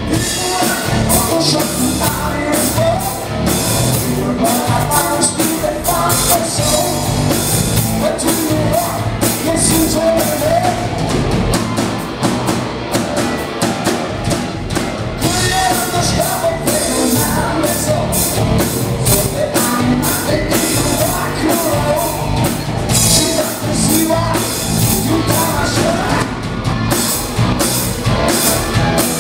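Live rock band playing a rock-and-roll number: electric guitars over a drum kit, loud and continuous.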